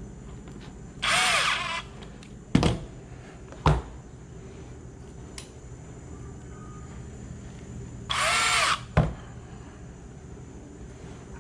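Power drill driving end cap set screws in two short runs, its motor whirring up and falling back each time. Sharp knocks follow each run.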